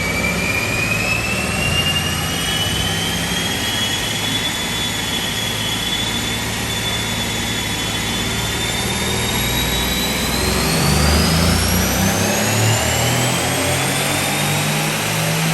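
Mercedes-AMG C63 S's twin-turbo V8 running under full load on a chassis dyno during a power pull on the stock tune. A high whine climbs steadily in pitch as speed builds, rising faster over the last few seconds.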